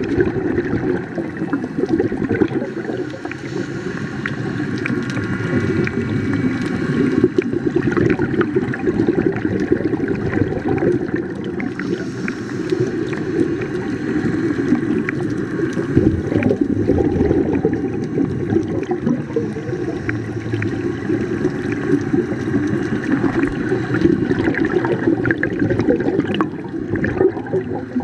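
Steady underwater gurgling and bubbling with many faint ticks: water noise and a scuba diver's exhaled regulator bubbles, heard underwater.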